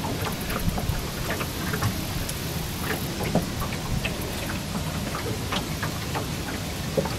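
Irregular light ticks and taps, scattered several times a second, over a steady low hum and hiss.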